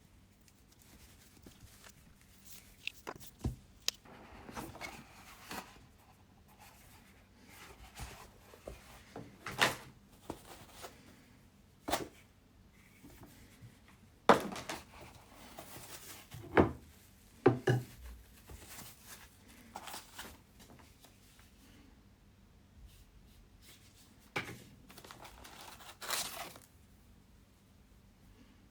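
A cardboard box and its packaging being handled and opened: rustling and tearing, with a scattering of knocks and thunks, the loudest a little past the middle.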